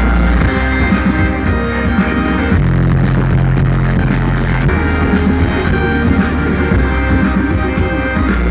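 Live band playing an instrumental passage of an indie rock song, with guitar over bass and drums.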